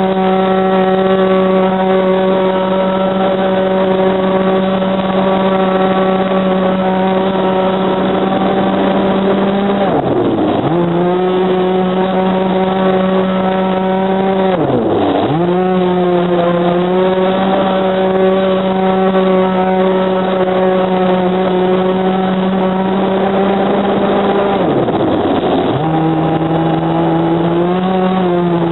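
A radio-controlled boat's 26cc two-stroke petrol engine running at high revs, heard from a camera on its own deck as a steady loud drone. Three times, about 10, 15 and 25 seconds in, the revs drop sharply for about a second and climb straight back up.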